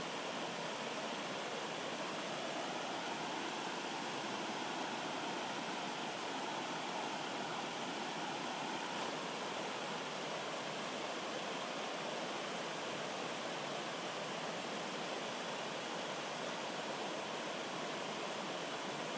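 Shallow rocky stream running over small cascades: a steady, even rush of water.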